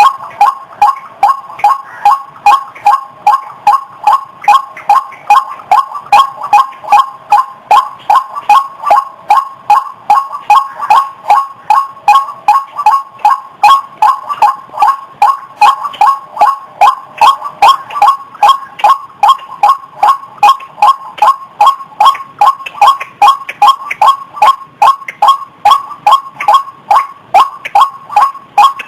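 White-breasted waterhen (ruak-ruak) calls, a lure recording: loud, harsh 'wak' notes repeated evenly at about two to three a second. It is the call that draws waterhens out of cover toward the sound.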